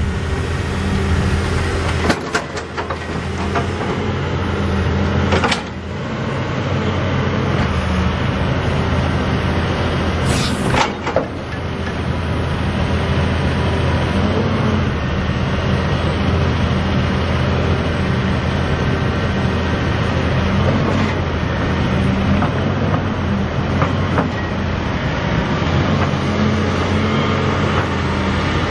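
John Deere 6068H six-cylinder diesel engine of a 2002 John Deere 200C LC excavator running steadily. A few sharp knocks come in the first six seconds, and a short high hiss about ten seconds in.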